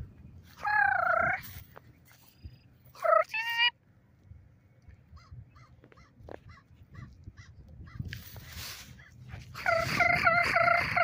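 Large birds calling at close range with harsh, pitched calls. There is one call about a second in and two short rising calls around three seconds. Faint chirps follow, then a long run of quick repeated calls near the end.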